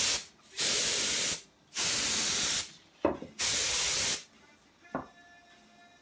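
Can of compressed air fitted with a red extension straw, sprayed in four hissing bursts of up to about a second each to blow wet alcohol ink across a canvas. A light click follows the third burst, and another comes near the end.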